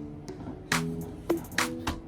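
Background music: pitched chords over a steady drum beat.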